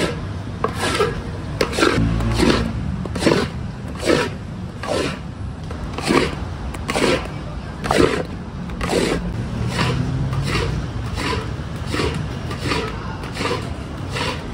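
Long paddle scraping and scooping thick, sticky yellow sweet paste around a large metal wok, a rasping stroke about once a second, over a steady low rumble.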